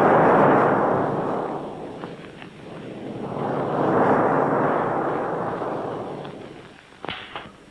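Two rolls of thunder in a film's storm soundtrack: the first is already sounding and fades away, and the second swells up about four seconds in and dies down. Two faint knocks follow near the end.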